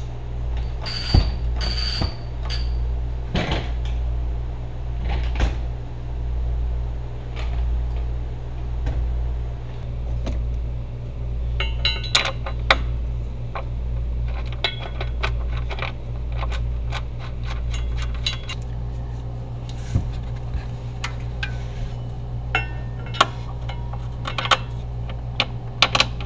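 Metal clinks and taps from a steel tow hitch being raised on a floor jack and lined up under the rear of an SUV, then runs of quick clicking as its mounting bolts are started into the frame. A steady low hum that swells and fades every second or two runs underneath.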